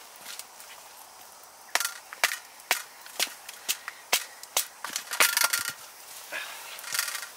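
Knife working a piece of dry wood: a run of sharp cracks and snaps, about two a second, with one longer scraping stroke a little past the middle.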